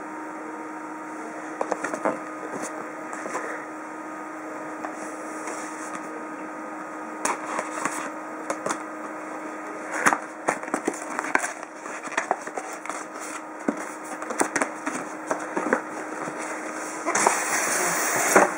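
Cardboard packaging being handled and opened: scattered taps, clicks and rustles, with a louder scraping rustle for a second or two near the end.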